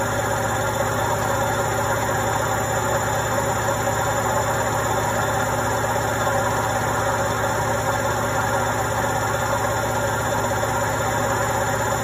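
Indesit front-loading washing machine on its spin cycle, the drum turning at speed with a loud, steady whirring hum that does not change.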